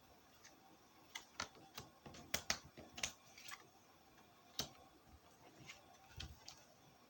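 Petit Lenormand (cigano) cards being handled and laid down on a table: a scattered run of faint light clicks and taps, most of them between about one and four seconds in, with one more about four and a half seconds in.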